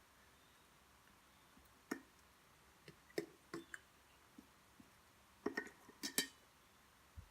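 Scattered light clicks and clinks of tableware being handled during a meal: one about two seconds in, a few more around three to four seconds, and a louder cluster near six seconds.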